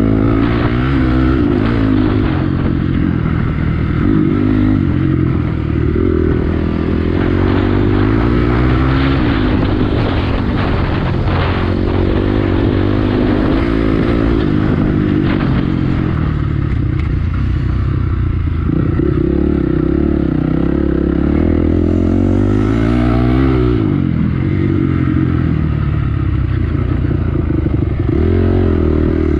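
Honda CRF250X's single-cylinder four-stroke engine revving up and dropping back over and over as the bike accelerates and backs off around a dirt motocross track. There is some rattling around the middle.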